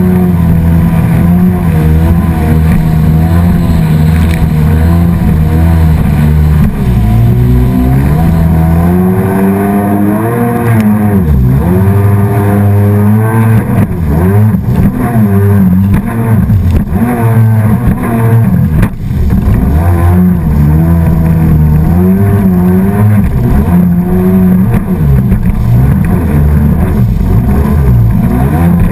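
Engine of a small motor craft running at speed on the water. Its pitch holds steady at first, then swings up and down every second or two as throttle and load change.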